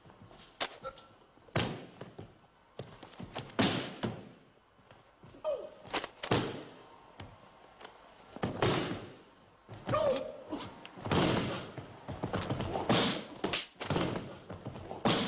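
Bodies landing on training mats as aikido partners throw each other and take breakfalls: irregular thuds and slaps, roughly one every second or so, some followed by a brief rush of noise.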